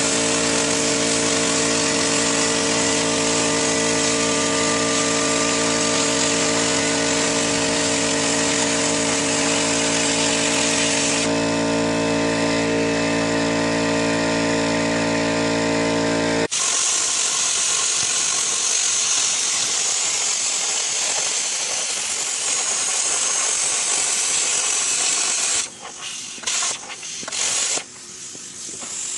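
Machinery hum with many steady tones under a hiss for the first half. It then changes abruptly to a plasma cutter's even hiss as it cuts quarter-inch steel plate, which breaks off about three and a half seconds before the end.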